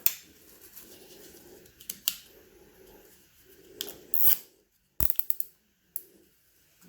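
Nylon zip ties being pulled tight around a wiring loom: short scratchy ratcheting zips and sharp plastic clicks, with a quick cluster of clicks about five seconds in.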